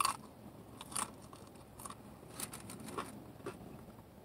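Bite into a crispy fried taco shell, with a crunch at the very start, then chewing with scattered small crunches.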